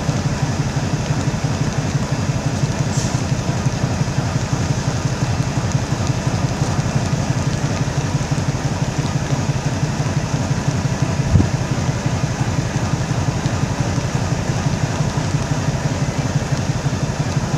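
WDM-class diesel locomotive's engine running with a steady, fast-pulsing low rumble, with one short thump about eleven seconds in.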